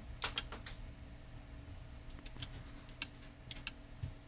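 Keys on a Mircom intercom keypad being pressed to enter a resident's name: a quick run of about four clicks at the start, then a few spaced single clicks and a quick pair near the end.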